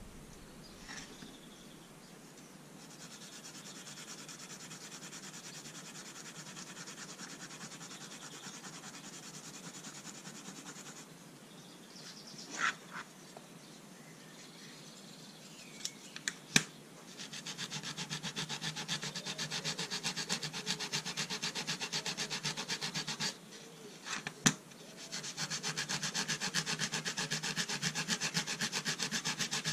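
Quick back-and-forth rubbing along a small folded boxwood-and-brass rule, in long runs of even strokes that grow louder in the second half. A few sharp clicks break the runs.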